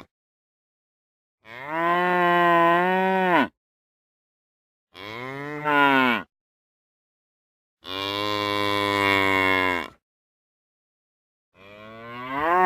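Cow mooing: four separate long, low moos with dead-silent gaps between them. The last moo rises steeply in pitch and grows loud near the end.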